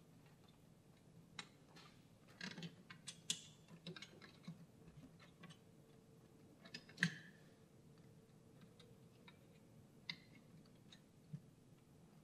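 Faint, scattered clicks and light rustles of copper wire pairs being pressed by hand into the metal clips of a 66 punch-down block, with the sharpest click about seven seconds in.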